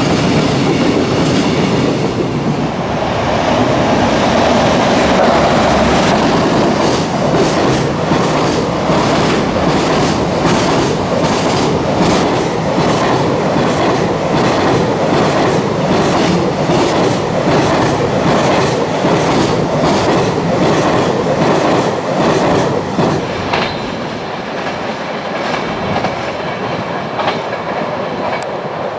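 Container freight train running past at speed, its wheels clattering rhythmically over the rail joints with a heavy rumble. Near the end the sound turns quieter and duller as the train is heard further off.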